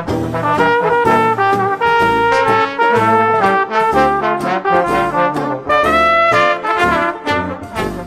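Instrumental 1920s New Orleans-style jazz: trumpet and trombone playing melody lines over a steady beat.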